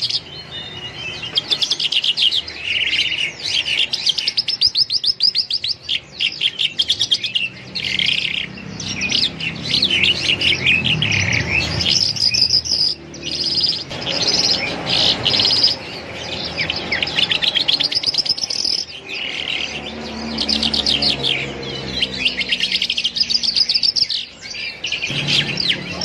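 Caged songbirds chirping and trilling without pause, with rapid high calls overlapping one another.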